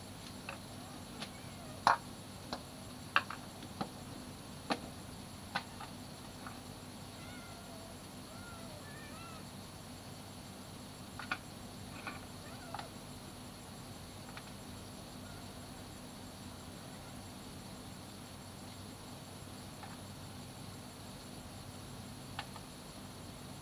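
Outdoor background with a low steady hum and a high steady insect-like buzz. Sharp taps and clicks come in the first six seconds, the loudest about two and three seconds in, and a few short chirping animal calls follow later.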